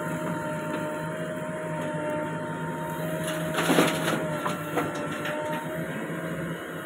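JCB 3DX backhoe loader's diesel engine running steadily while digging, with a short noisy scrape about three and a half seconds in.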